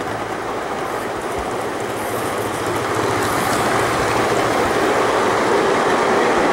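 Scale-model ride-on train rolling along its track: a steady rumble of wheels on rail that grows louder as it comes closer.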